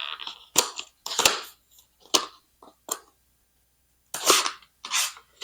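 Hard plastic blister packaging of a RAM stick being pried and pulled open: a series of sharp, irregular cracks and crinkles, about eight of them, loudest in the first half and again near the end.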